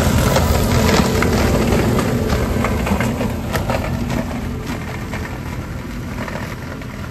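John Deere 5115M tractor's diesel engine running under load as its rear-mounted Baselier haulm topper flails potato stalks, with scattered sharp ticks over the steady engine note. The sound fades steadily as the tractor moves away.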